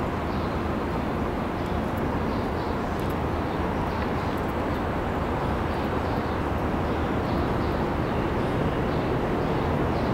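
Steady outdoor city rumble and hiss that slowly grows louder toward the end as a subway train approaches in the distance on the elevated line.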